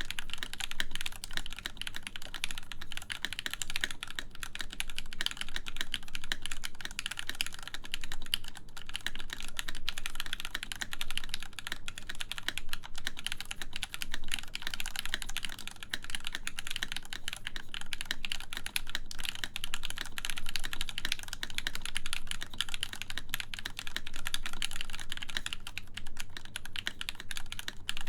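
Continuous fast typing on a full-size mechanical keyboard with lubed Gateron X linear switches in an aluminum plate: a dense, even stream of key clacks with no pauses.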